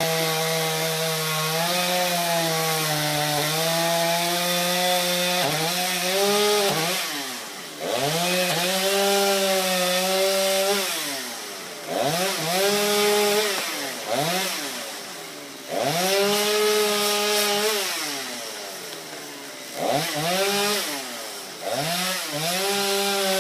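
Chainsaw running at high revs, its engine pitch dropping away sharply and climbing back up several times, about every four seconds after the first few seconds.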